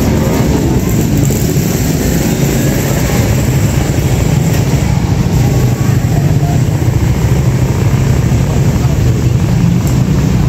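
Busy street ambience: a steady drone of vehicle engines, with the voices of people talking nearby.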